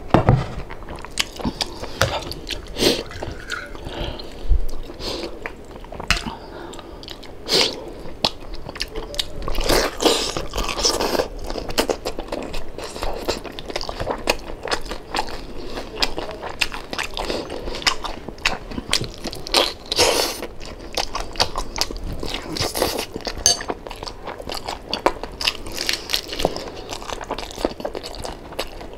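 Close-up eating sounds: biting and chewing crispy deep-fried pork knuckle, its crackling skin giving loud, irregular crunches between softer chewing.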